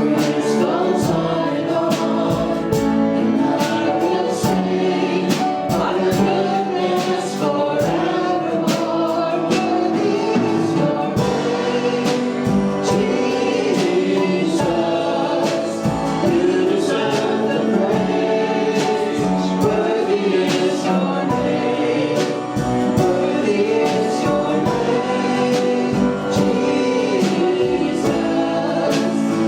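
Congregational worship song: group singing over a full band, with a regular beat.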